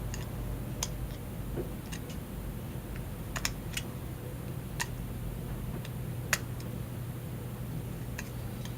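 Small hand tools clicking and tapping against the iPhone 4S's parts while its screen screws are uncovered and backed out: irregular sharp clicks, about a dozen, with the loudest a little after six seconds in, over a steady low hum.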